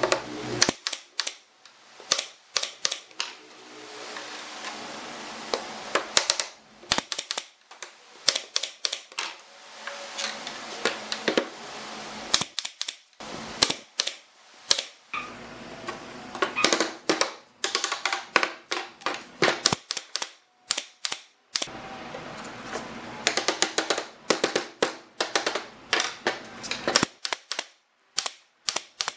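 Air-powered brad nailer firing brads into pine slats: sharp shots in quick runs of several a second, broken by short pauses as it is moved along the board.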